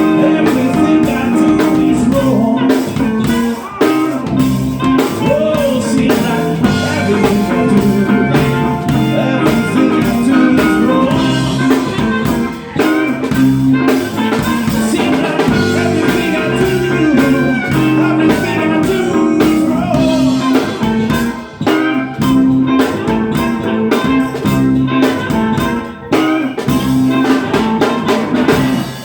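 A blues band playing live, with guitar over bass and drum kit, until the song ends right at the close.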